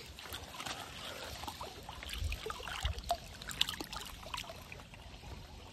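Light trickling and dripping water: a scatter of small, irregular splashes and ticks over a faint low rumble.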